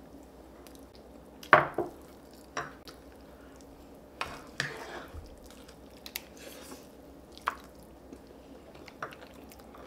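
Scattered clicks and knocks of spoons and chopsticks against bowls and plates during a home meal, with wet eating sounds between them; the sharpest knock comes about one and a half seconds in.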